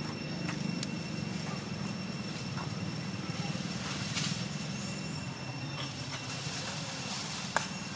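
Steady low rumble with a thin steady high whine over it, scattered light clicks and rustles, and one sharp click near the end.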